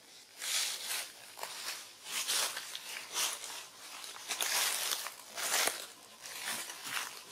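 Rustling and crunching of dry leaves and twigs in short irregular bursts, about one or two a second.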